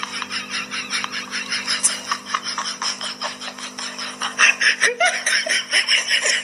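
Rapid, breathy giggling laughter over a steady low hum.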